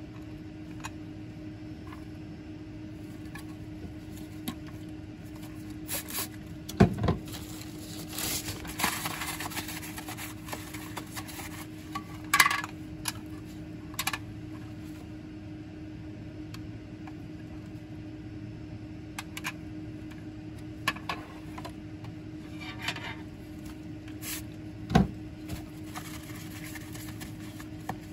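Plastic petri dishes knocking and clicking as they are handled and set down, about three sharp knocks spread out with some rustling of tissue paper between them, over a steady low hum.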